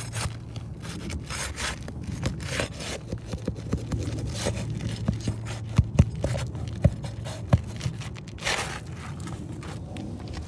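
Asphalt 3-tab shingles being pried and peeled up by hand: irregular scraping and rubbing of the gritty shingle surface, with a few sharp clicks around the middle and a louder scrape near the end.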